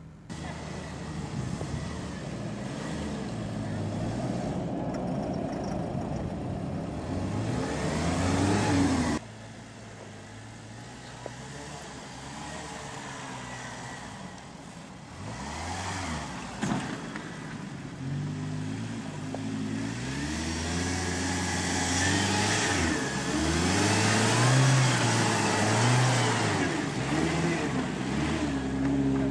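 Jeep 4x4 engines revving up and down as they work through deep sand, the pitch rising and falling again and again. The sound changes abruptly about 9 seconds in.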